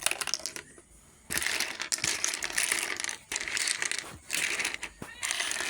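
Toy packaging being handled, crinkling and crunching in dense crackly stretches with brief breaks; a few crackles open it, then a short lull before the main crunching starts about a second and a half in.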